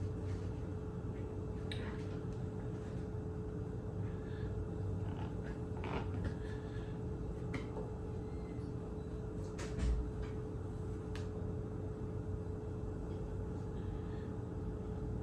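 Steady low hum with a faint constant tone, broken by a few light clicks and taps from handling the lid of a glass jar fermenter.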